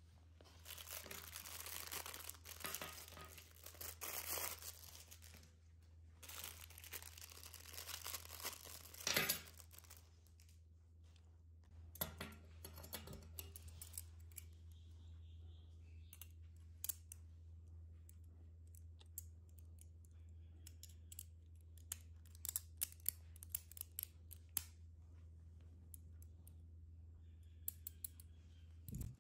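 Plastic packets crinkling and tearing for about the first nine seconds, with another brief rustle a few seconds later. After that come small scattered clicks and taps as the metal and plastic parts of a Flash Sagittario Beyblade are handled and fitted together by hand, over a steady low hum.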